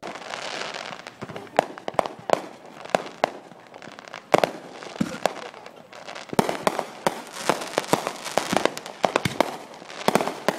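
Aerial fireworks bursting: an irregular run of dozens of sharp bangs and pops, with a hissing crackle in the first second.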